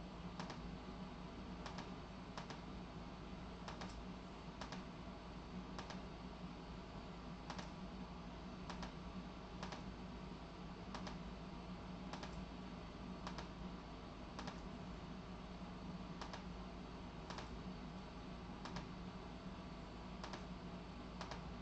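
Faint sharp clicks at uneven intervals, about one a second, over a steady low hum and room hiss.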